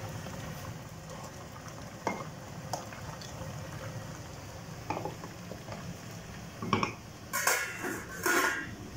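Wooden spoon stirring leafy greens in a stainless steel pot, with a few light knocks against the pot's side. About two seconds from the end, a cluster of louder metallic clatters as the stainless steel lid is handled and set back on the pot.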